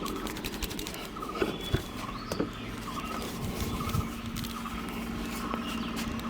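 Hands tapping and rubbing on a person's head during a barbershop head massage: a run of light, quick taps, then a few sharper ones.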